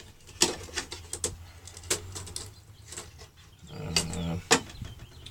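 Clicks and knocks of metal and plastic parts being handled as a flat-screen TV is taken apart, with a brief whir of a small electric motor about four seconds in.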